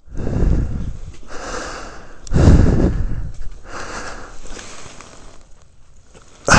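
A fallen motorcyclist breathing hard and gasping, about five heavy breaths roughly a second apart, the loudest about two and a half seconds in, as he strains to get up off the ice.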